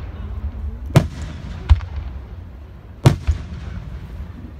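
Aerial fireworks shells bursting: two loud booms about two seconds apart, each followed by a lighter bang, over a steady low rumble.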